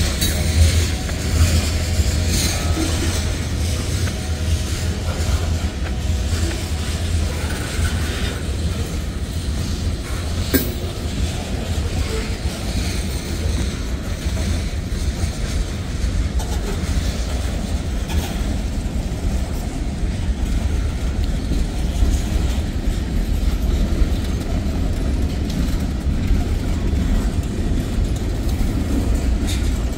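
Freight cars of a manifest train rolling past, with covered hoppers and boxcars on steel wheels running steadily along the rails. A sharp knock comes about ten seconds in.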